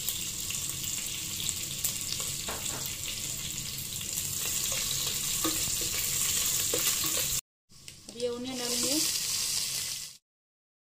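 Hot oil sizzling steadily in a pot as curry leaves, green chillies and cumin and mustard seeds fry in it, with a wooden spatula stirring. The sizzle breaks off briefly about seven seconds in and stops about ten seconds in.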